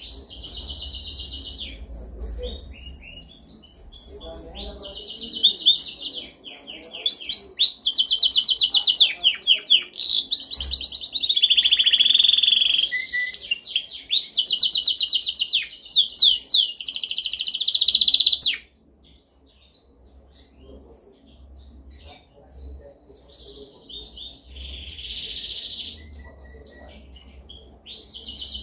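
Domestic canary singing: rapid trills and rolled, repeated phrases. The song is loud through the middle, stops abruptly about two-thirds of the way in, then continues more quietly.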